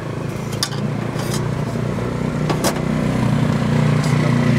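A motor vehicle engine running in street traffic, a low hum that gets louder toward the end, with a few light clinks.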